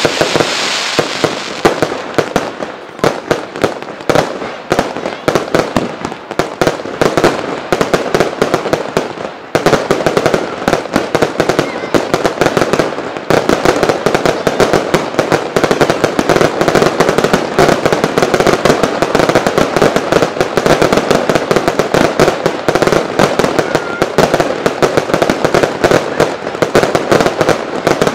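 Aerial fireworks firing a dense barrage of bangs and crackles, shot after shot in rapid succession. For the first ten seconds or so the loud reports come with short dips between them; after that the firing thickens into near-continuous fire.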